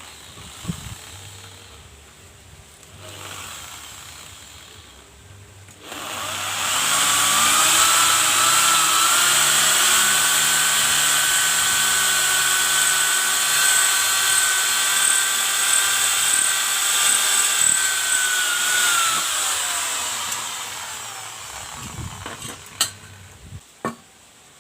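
A high-speed motor runs steadily with a high whine for about thirteen seconds, then winds down with falling pitch. A few sharp knocks follow near the end.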